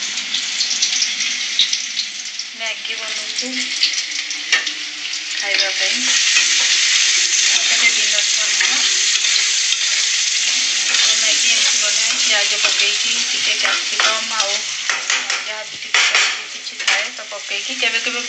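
Food sizzling as it fries in a pan on a gas stove, with a spatula stirring, scraping and knocking against the pan. The sizzle grows louder about six seconds in.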